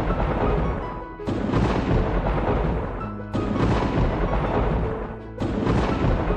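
Soundtrack music with a thunder-like crash that starts suddenly and fades away, repeating about every two seconds.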